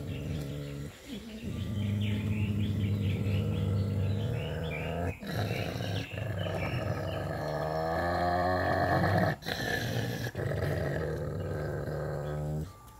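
A dog growling low and continuously over a shared food tub, in long stretches broken by short pauses about five and nine seconds in: a dog guarding its food from the other dog at the bowl.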